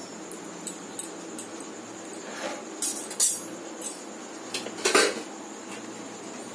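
Steel kitchen utensils clinking and knocking against each other and the stove top, mostly in scattered light clinks, with two louder knocks about three and five seconds in. A steady low hum runs underneath.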